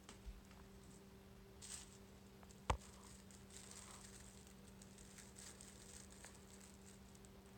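Faint rustling and pattering of a Syrian hamster scurrying on a hard floor and into a crinkly fabric tunnel, with one sharp click a little under three seconds in, over a low steady hum.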